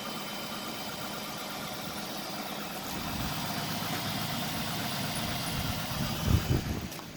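2005 Dodge Magnum R/T's rebuilt 5.7 L Hemi V8 idling steadily through its completely stock exhaust, not long after a cold start. A brief low thump comes near the end.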